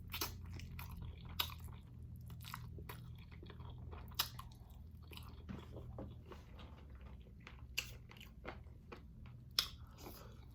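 Close-up chewing and biting of hot chicken wings, with irregular sharp crunches and wet mouth sounds, over a steady low hum.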